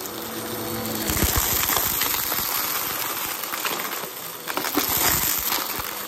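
Bissell upright vacuum cleaner running over carpet and sucking up confetti and small debris, the bits rattling and clicking as they are drawn in. It gets louder about a second in.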